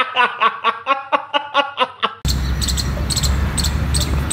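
A man laughing in a quick run of short bursts that stops suddenly about two seconds in. After that comes a steady outdoor rumble with a short high chirp repeating about twice a second.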